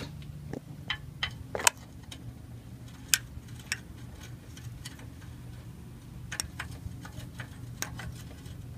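Irregular small metallic clicks and taps of a new oxygen sensor being handled and started into its threaded port on the exhaust pipe by hand, the sharpest a little under two seconds in and another about three seconds in, over a steady low hum.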